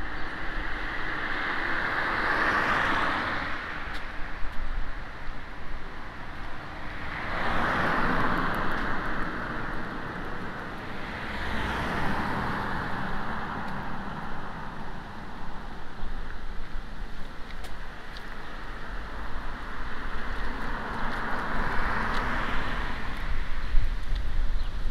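Road traffic: several cars pass one after another, each swelling up and fading away, over a steady low rumble.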